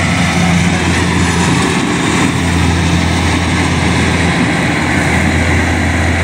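Kubota combine harvester's engine and threshing machinery running steadily at working speed while cutting rice paddy: a loud, even hum with no breaks.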